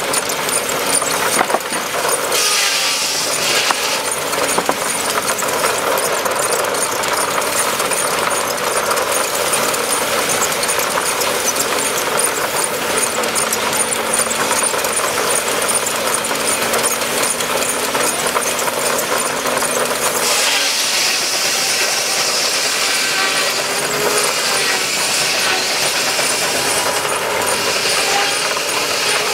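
Steam-powered sawmill running: the large circular saw blade cuts a log on the carriage, and sawdust is thrown out through the chute. The din is steady, turning harsher for a couple of seconds near the start and again through the last third.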